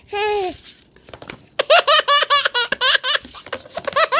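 A baby laughing: one high-pitched laugh at the start, a short lull, then a fast run of short bursts of giggling, about six a second, and more laughs near the end.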